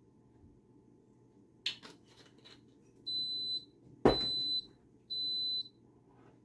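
Instant Pot electric pressure cooker beeping three times, evenly about a second apart, each a short steady high tone. A couple of clicks come about two seconds in, and a loud thump lands with the second beep.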